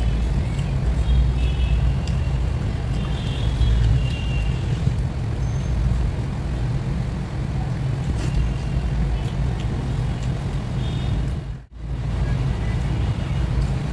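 Steady low rumble of background noise that cuts out for a moment near the end.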